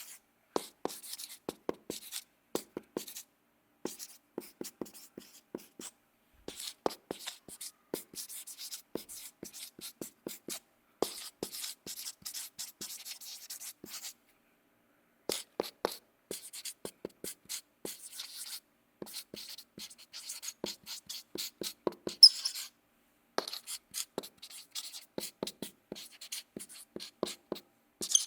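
Marker writing on a board: quick strokes and taps in short runs with brief pauses between them, and a short squeak of the tip about 22 seconds in.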